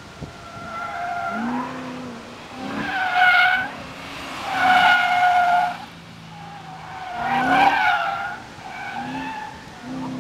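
BMW E36 with a swapped-in V8 drifting: its tyres squeal in about five long bursts, each a second or so, over the V8 revving up and down.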